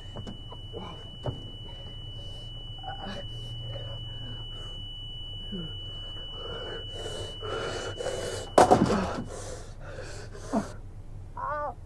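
A steady high-pitched ringing tone, a tinnitus effect standing for the drummer's sudden loss of hearing, under a man's heavy panting breaths. The breathing grows louder toward a sharp knock about eight and a half seconds in, and the ringing cuts off soon after.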